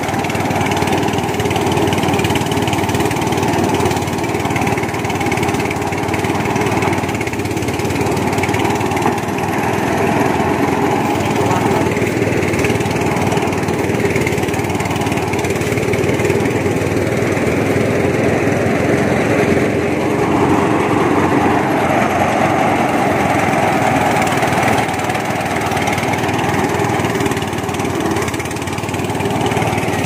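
Engine-driven rice thresher running steadily, its small engine working continuously.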